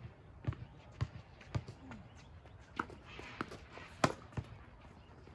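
Tennis ball bouncing on a hard court, about two bounces a second, then tennis rackets striking the ball, the loudest and sharpest hit about four seconds in.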